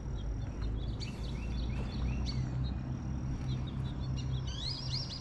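Small birds chirping in short repeated calls, busiest near the end, over a steady low rumble and a faint, steady high-pitched insect-like tone.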